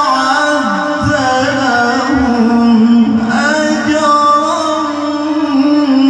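A male Qur'an reciter (qari) chanting in the melodic tilawah style into a microphone, holding long notes that waver and turn in pitch.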